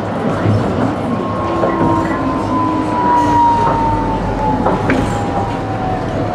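Running noise inside the passenger cabin of a Toyohashi Railway T1000 'Hottram' low-floor tram: a steady rumble with a motor whine that slides slowly down in pitch, and a few light clicks and knocks.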